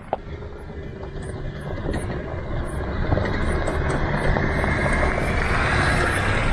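Land Rover Discovery 3 with its TDV6 diesel driving toward the listener on a gravel track, the engine rumble and the crunch of tyres on loose stones growing steadily louder as it nears. A single sharp click right at the start.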